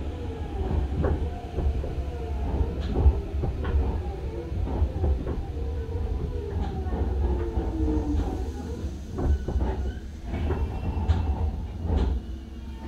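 Hanshin 5001-series 'Jet Car' electric train, heard from inside the cabin as it brakes into a station: the motor whine falls slowly in pitch over low running rumble and wheel knocks, and the train settles to a stop near the end.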